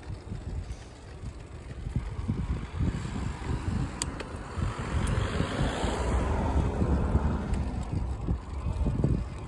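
Wind buffeting a phone microphone that is moving along a street, a gusty low rumble, with a broad rushing noise that swells through the middle and a couple of faint clicks.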